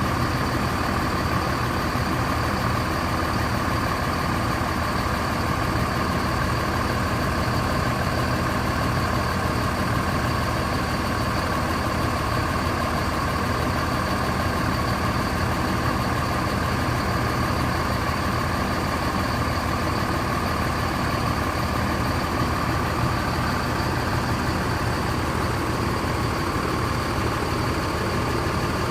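Diesel bus engine idling steadily while being warmed up, an unbroken low running with a constant whine above it.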